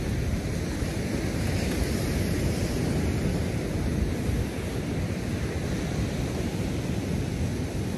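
Wind buffeting the microphone in a steady low rumble, over the wash of ocean surf breaking on the beach.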